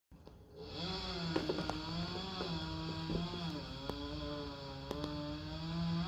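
Chainsaw running at full throttle, its pitch sagging and recovering under load as it cuts, with a few sharp snaps. It comes up about a second in and drops off right at the end.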